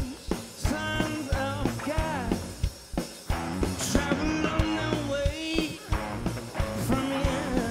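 A rock band playing live: electric guitars and bass over a steady drum beat.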